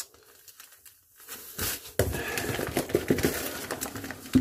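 Packaging rustling and crinkling as a box is unpacked by hand, with sharp clicks and knocks mixed in; it starts about a second and a half in after a brief lull.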